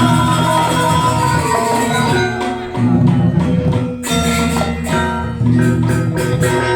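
Balinese gamelan ensemble playing: bronze metallophones ringing in held, shimmering tones over a low drone, with a short drop in the texture about four seconds in before the playing resumes.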